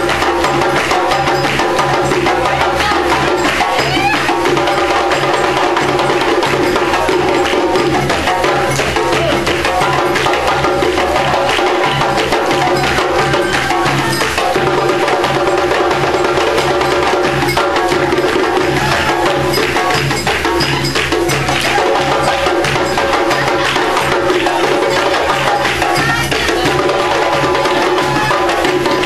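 Live percussion ensemble music: drums and other hand percussion playing a busy, steady rhythm over sustained pitched sound.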